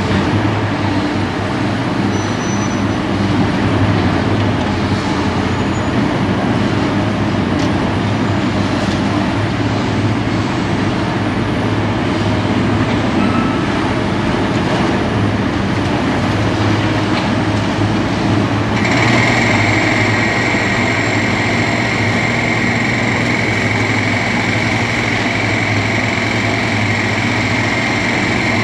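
Liebherr R 964B crawler excavator's diesel engine running steadily under load as it digs demolition rubble, a constant low hum. About two-thirds of the way through, a steady high-pitched whine joins and holds.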